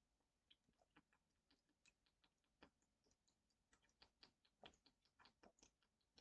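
Near silence with faint, irregular small clicks and ticks, a few a second.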